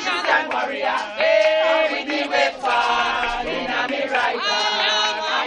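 A group of people singing together, many voices holding long drawn-out notes.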